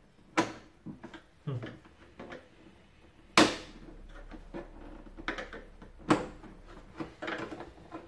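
Plastic snap clips of a vacuum cleaner's top cover clicking as they are pried loose with a screwdriver, with the plastic housing knocking and rattling as it is handled. There are several sharp clicks, the loudest about three and a half seconds in.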